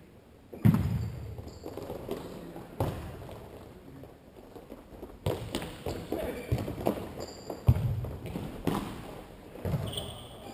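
Futsal ball being kicked and bouncing on the court of a large echoing sports hall: about half a dozen sharp knocks, each followed by a ringing echo.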